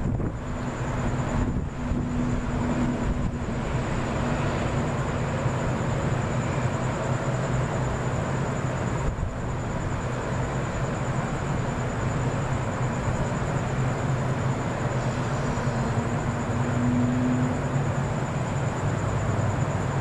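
Steady low rumbling background noise, with a constant faint high-pitched whine.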